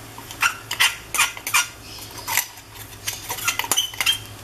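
Steel tumbler tapped and knocked to shake powdered sugar out into a pan: a dozen or so irregular, sharp metallic clicks and clinks, with a low steady hum underneath.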